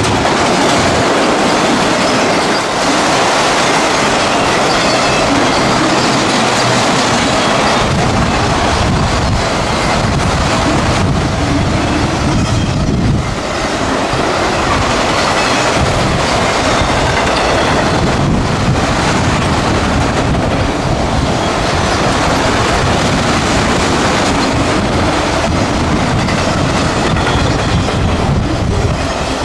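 Freight train of autorack cars passing close by at speed: a steady rumble of steel wheels on rail, with the repeated clickety-clack of wheels crossing rail joints.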